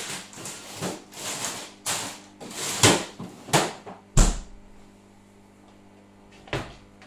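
De'Longhi microwave oven running with a steady low hum while it cooks a salmon fillet. Over the hum comes a run of sharp, hissing bursts and knocks through the first four seconds, the loudest a heavy thump about four seconds in, and one more burst near the end.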